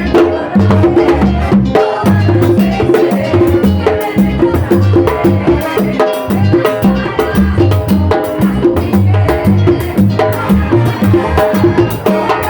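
Tropical dance music with timbales played along, sharp percussive strikes over a steady, repeating bass beat.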